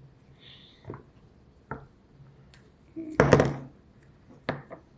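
Plastic Play-Doh toy pieces being handled: a few light clicks and knocks, with one louder clatter about three seconds in.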